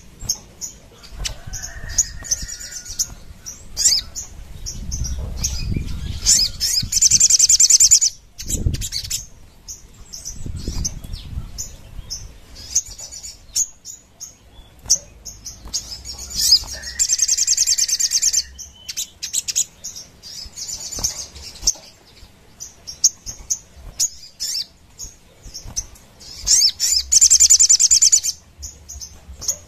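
Caged sogon sunbird singing hard: high-pitched chirps broken by three long, rapid trilled bursts about ten seconds apart. Low flutters and a single thump about nine seconds in come from the bird moving in the cage.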